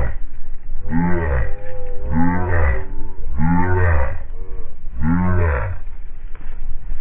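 A large animal calling over and over: five or six low calls, each rising then falling in pitch, about one a second, over a steady low rumble.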